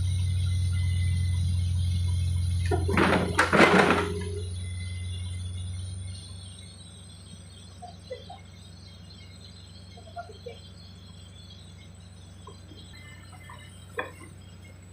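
Mini excavator's engine running steadily with a high whine, a loud burst of noise about three seconds in, then the engine winds down and stops about six seconds in. Faint scattered chirps follow.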